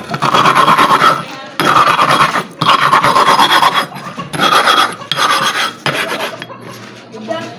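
Stone grinding on stone in long, rasping hand strokes, about five of them, then lighter, shorter scrapes near the end: a sharpening stone whose centre has worn hollow is being lapped flat against another stone.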